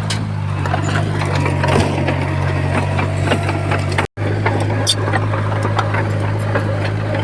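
Komatsu bulldozer's diesel engine running steadily at a constant note, with scattered sharp clicks and clanks over it. The sound cuts out for an instant a little after four seconds in.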